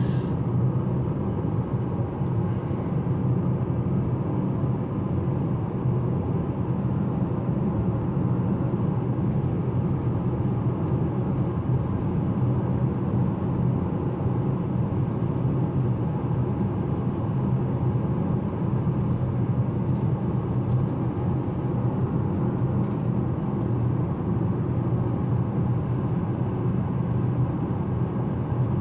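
Steady in-cabin road noise of a 2019 GMC Terrain Denali cruising at highway speed: a constant low drone of tyres and drivetrain.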